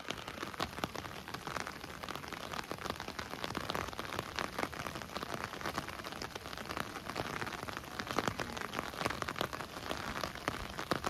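Heavy, steady rain falling, with many sharp drop hits close by.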